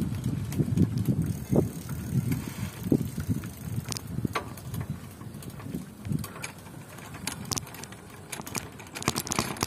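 Bicycle being ridden, heard as an uneven low rumble from wind and road on the microphone, with scattered clicks and rattles from the bike in the second half.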